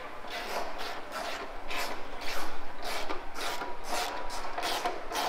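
Hand reamer scraping out a bolt hole in a painted 1956 Ford F100 fender, in a quick, uneven run of short rasping strokes.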